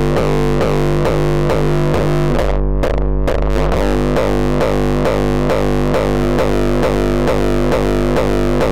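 A looped, heavily distorted 909 kick drum run through FabFilter Volcano 3's resonant filters. It repeats several times a second, each hit trailing a sustained distorted bass tone. About three seconds in, the top end briefly cuts out as the filter settings change.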